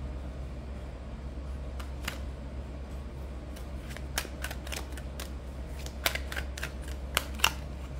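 A deck of tarot cards being handled and shuffled by hand: a run of quick, light clicks and snaps of card edges, starting about two seconds in, over a steady low hum.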